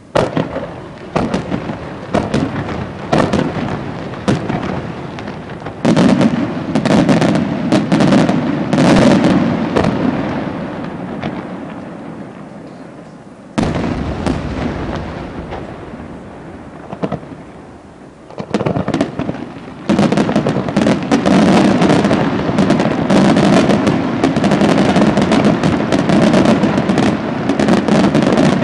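Fireworks display: aerial shells bursting in rapid volleys of bangs and crackle. Midway a single sudden loud blast stands out, and over the last third the bursts merge into a dense, continuous barrage.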